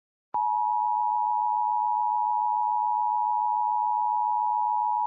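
Emergency Alert System attention signal: a steady two-note alert tone just under 1 kHz that starts abruptly about a third of a second in and holds at an even level, announcing the warning message that follows.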